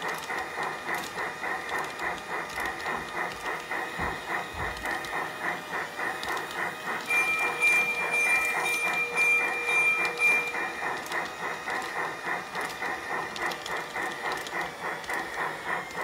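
Piko G-scale model of steam locomotive 80 012 running on its track, with an even rhythmic beat of about two to three a second over a steady whine. A thin high tone joins for a few seconds in the middle.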